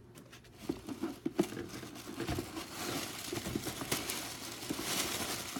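Packaging crinkling and rustling as an item is unwrapped, with small knocks and clicks; the rustling grows denser and louder about halfway through.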